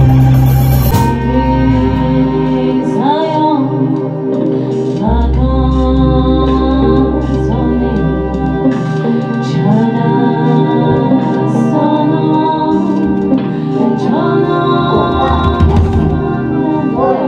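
Live music: a female vocalist sings wavering, gliding lines over sustained drone chords, with a deep bass note held for a few seconds in the middle.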